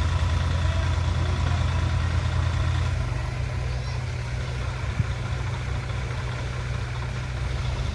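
An engine running steadily with a low hum that eases off a little about three seconds in, and a single sharp click about five seconds in.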